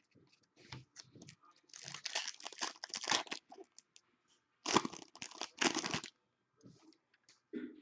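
Crinkling and tearing of a trading card pack wrapper being opened by hand, in two bursts about two and five seconds in, with small clicks of cards being handled in between.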